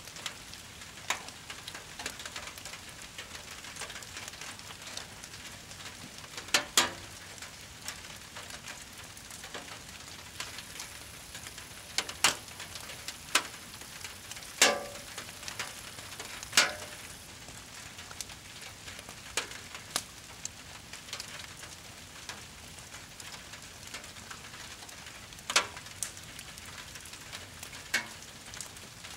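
Brush pile fire burning with a steady crackling hiss, broken by about a dozen sharp, loud pops scattered at irregular intervals.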